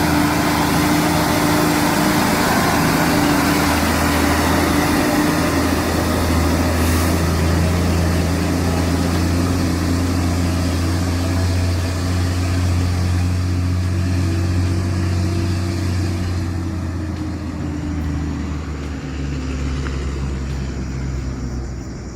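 Heavy truck engine running steadily under load, with a steady higher hum over the low engine note; it grows quieter in the last few seconds.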